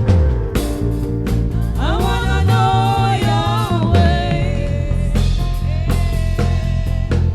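Church praise music with a steady drum-kit beat and bass. A voice sings a sliding line about two seconds in.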